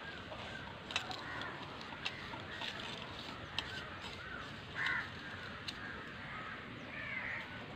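Crows cawing, a few separate calls spread through, the loudest about five seconds in. Faint sharp clicks come from fingers scooping coloured salt on a steel plate.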